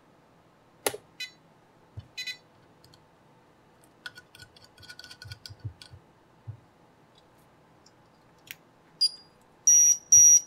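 Soft clicks and handling noise as a LiPo battery is fitted to an FPV quadcopter and its power connector is plugged in. About a second before the end, a run of loud, high electronic beeps starts as the quad's electronics power up.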